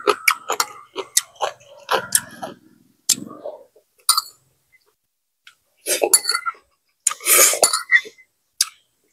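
A person eating from a rice bowl with chopsticks: irregular sharp clinks of the chopsticks against the bowl, with chewing in between. About seven seconds in comes a louder, longer noisy burst.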